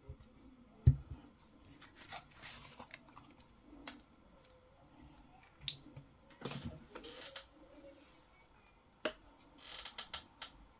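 Small handling sounds on a repair bench: a sharp knock about a second in, short stretches of scraping and rubbing, and a few light clicks.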